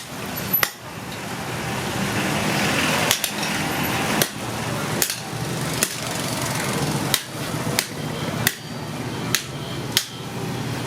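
Hammer blows on metal, about one strike a second, each a sharp crack with a short ring, over a steady rushing noise.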